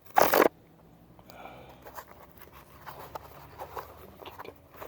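Cardboard ammunition box being torn open along its perforated flap: one short, loud rip near the start, then quieter rustling and small clicks of the box being handled.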